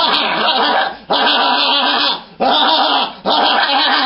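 A person's voice making long, wavering, howl-like wails in a ghost voice, four drawn-out calls with short breaks between them.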